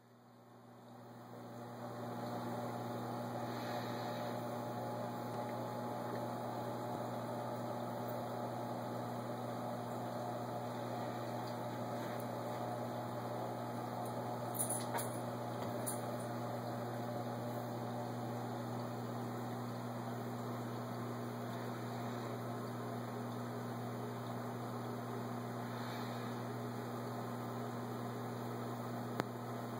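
Steady low mains-frequency hum with an even hiss from running home-aquarium equipment, fading in over the first two seconds; a few faint clicks about halfway through.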